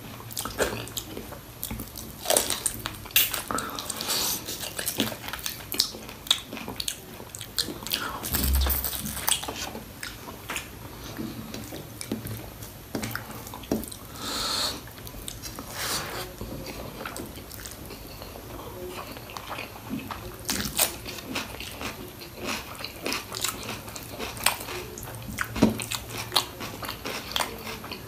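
A person eating goat paya (mutton trotter curry) with rice, close to the microphone: wet chewing and biting with many irregular sharp clicks and smacks. There is a dull low thump about eight seconds in.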